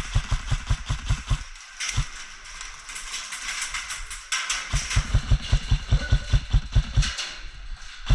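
Running footsteps and jostling gear picked up by a body-worn action camera: quick, even thuds about five a second in two runs, stopping for a few seconds in between, over a rustling hiss.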